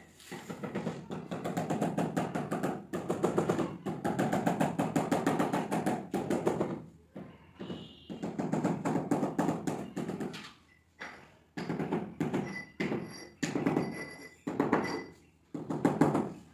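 Quick repeated tapping on stone in bursts of a few seconds with short pauses: a mason tapping a black stone floor-border strip down into its mortar bed.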